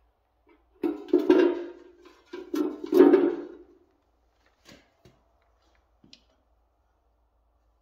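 A sheet-metal can with a funnel top clanks and scrapes on a concrete floor in two rough bouts as it is set down and shoved into place, with a few light clicks afterwards.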